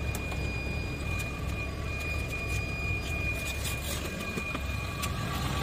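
Yutong bus's freshly overhauled Yuchai six-cylinder diesel engine idling steadily, heard from inside the driver's cab as a low, even rumble. A thin, steady high tone sits over it.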